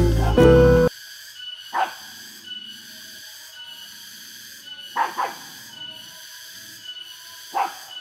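Background music that cuts off about a second in, then a dog barking three times, once near two seconds in, once around five seconds with a double bark, and once near the end.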